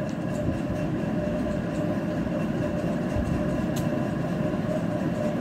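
Steady drone of a car driving in heavy rain, heard from inside the cabin: engine and road noise with the hiss of rain.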